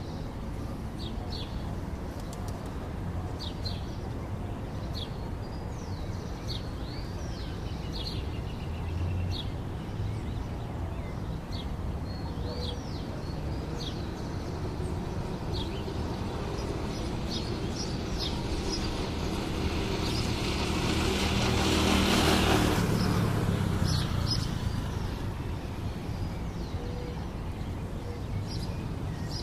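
Small birds chirping with short, high calls, again and again, over a steady low outdoor rumble. A vehicle passes about twenty seconds in, growing louder, then fading away.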